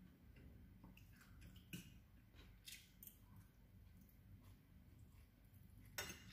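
Faint close-up eating sounds from someone eating fried noodles: soft chewing and slurping with a few small mouth clicks, the sharpest about six seconds in.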